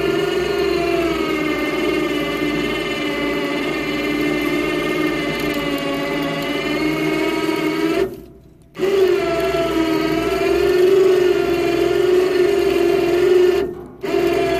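Harbor Freight 12-volt ATV winch motor whining steadily as it reels in cable under load, dragging a log splitter up a trailer ramp. It stops for under a second about eight seconds in and cuts out briefly again near the end.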